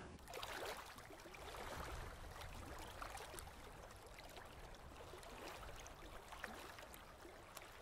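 Faint outdoor background noise: a steady low hiss with a few faint ticks.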